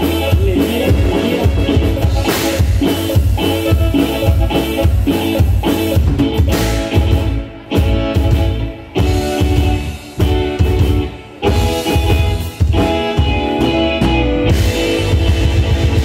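Norteño band music with drums, bass and guitar, cutting out briefly three times in the middle before playing on.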